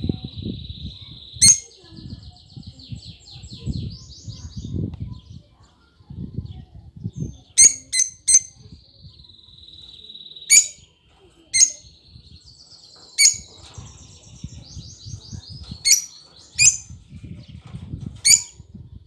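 Lovebirds calling: about ten sharp, shrill chirps at irregular intervals, with fast buzzy trilled chatter running between them and a low rumble underneath.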